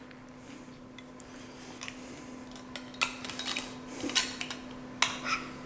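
Metal kitchenware clattering: a few sharp clanks and knocks, the loudest about three, four and five seconds in, over a steady low hum.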